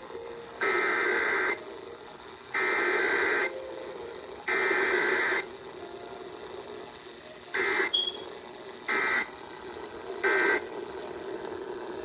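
Emergency Alert System digital data bursts played through an FM radio's speaker: three harsh, buzzing header bursts of about a second each, a second apart, then after a pause three short end-of-message bursts, with hiss in between. This is the burst pattern of a Required Weekly Test, which has no attention tone.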